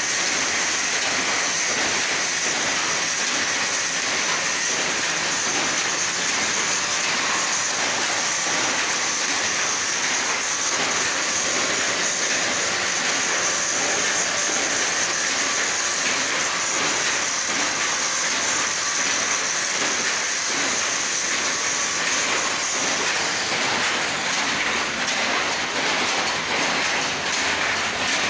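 Dense, steady mechanical clatter of power looms running in a weaving shed, with a continuous rapid rattle and no pauses.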